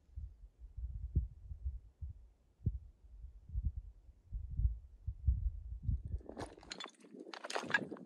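Low, muffled, irregular thumps and rumbles, then, about six seconds in, crunching footsteps on loose rocky ground begin.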